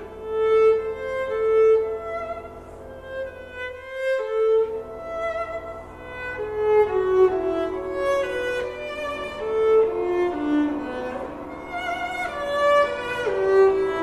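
Contemporary classical music: a bowed string instrument plays a slow melody of held notes, some of them sliding in pitch, over sustained low tones.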